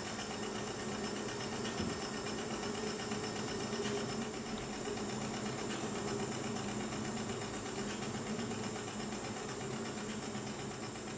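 A steady mechanical rumble with a hiss, like a machine or engine running without change.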